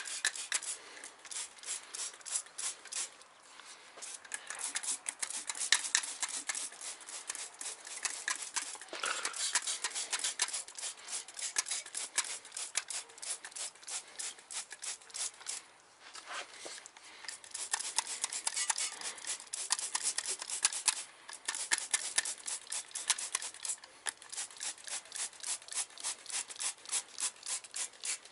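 Hand trigger spray bottle squeezed over and over, a quick squirt of degreaser on each pull, several a second, with a couple of brief pauses.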